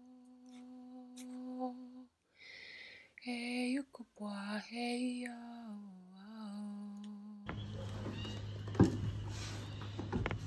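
A voice humming a slow wordless tune in long held notes that bend in pitch. About three-quarters of the way through the humming stops and a steady low electrical hum with room noise takes over, broken by a sharp knock and a few clicks near the end.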